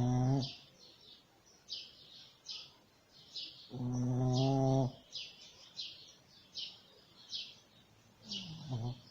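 Shih Tzu snoring in her sleep: a low droning snore tailing off about half a second in, a second long snore about four seconds in, and a shorter snore falling in pitch near the end. A bird chirps over and over in the background.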